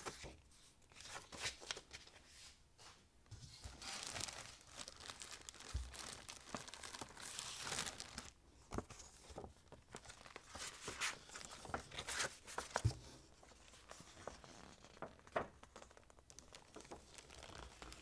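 Paper documents and plastic wrapping being handled and leafed through in a packed cardboard box: irregular rustling and crinkling with a few sharp clicks and taps.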